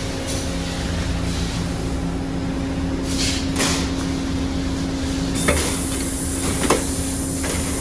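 Amada Vipros 357 Queen CNC turret punch press running with a steady hum. Two short hisses come a little after three seconds in, and two sharp knocks follow, about a second apart, in the second half.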